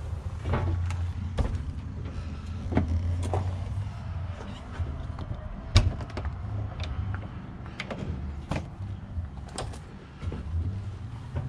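Truck camper entry door being opened: scattered clicks and knocks of footsteps and handling, with a sharp latch click about six seconds in, the loudest sound, as the keypad door handle is pulled. A low rumble runs underneath.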